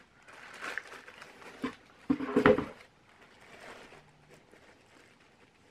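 Tissue paper rustling as a cloth shoe bag holding a pair of shoes is lifted from a box and set down on a table. A little after two seconds come a knock and a short hum of voice, the loudest moment, followed by faint handling.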